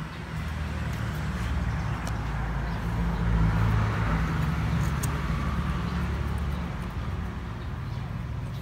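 1999 Kia Sportage engine idling steadily, heard up close in the open engine bay, a little louder for a few seconds in the middle.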